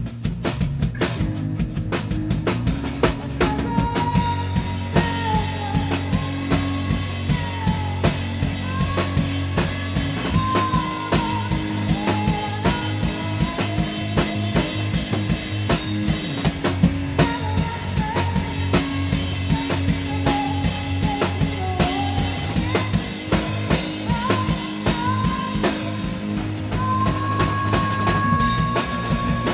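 Indie rock band playing live: a woman singing lead over electric guitars and a drum kit keeping a steady beat.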